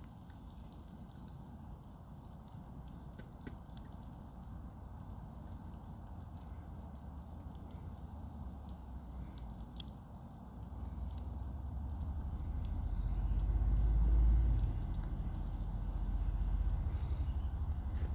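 Campfire wood crackling and popping in irregular sharp clicks, with a few short, high, falling bird chirps. A low rumble swells about halfway through and is loudest a little later.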